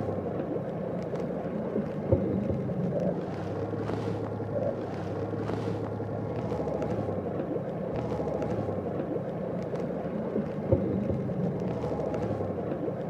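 Outboard motor of an inflatable rescue boat running steadily as a low, even hum, with a few brief knocks.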